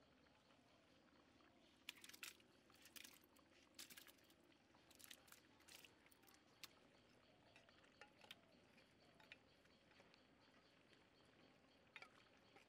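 Faint clinks and scrapes of a metal karahi against the rim of a large aluminium pot as mutton curry is tipped and scraped into boiling khichuri. The clinks are mostly in the first half, with a faint steady hiss beneath.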